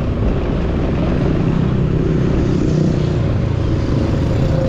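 Motor scooter being ridden through traffic: a steady, loud rumble of engine and road noise with wind buffeting the microphone.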